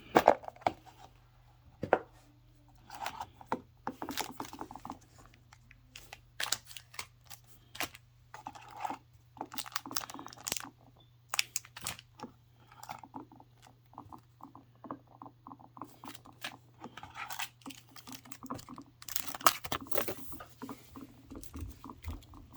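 Product packaging being handled and opened by hand: irregular bouts of rustling, crinkling and tearing with small clicks, broken by short quiet pauses.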